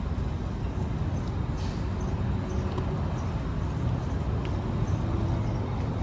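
Steady low rumble of a running vehicle engine, with a few faint high chirps and one short sharp click about four and a half seconds in.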